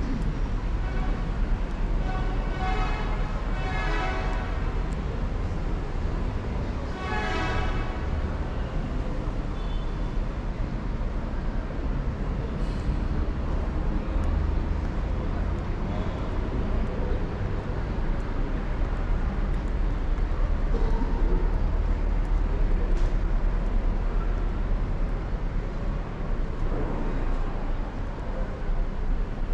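A steady low rumble, with a person's voice heard briefly twice in the first few seconds.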